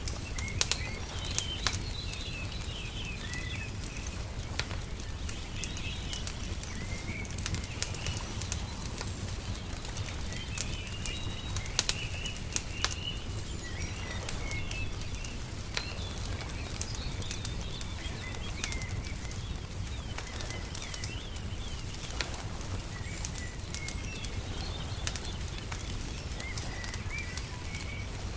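Wood fire crackling with scattered sharp pops, while small birds chirp and twitter throughout over a steady low rumble.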